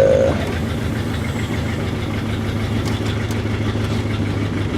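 1964 Ford Thunderbird's V8 idling steadily, still cold and running a little fast and rough, with the choke possibly stuck partly on. A short pitched tone sounds right at the start.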